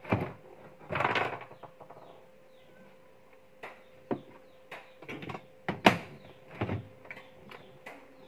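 Electric rice cooker being handled on a workbench: irregular knocks, a brief rattle about a second in, and several sharp clicks of its lid and metal body, the loudest a little before the end. A faint steady hum runs underneath.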